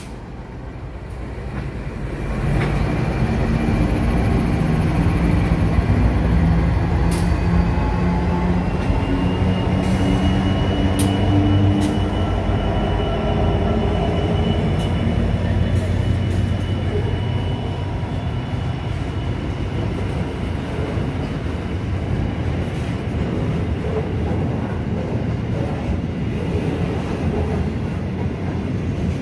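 Pacific National 93 class and Progress Rail diesel-electric freight locomotives passing close by, their engines running loud, with a high whine rising in pitch partway through and a few sharp metallic clicks. In the later part the locomotive sound gives way to the steady rumble of loaded freight wagons rolling past on the rails.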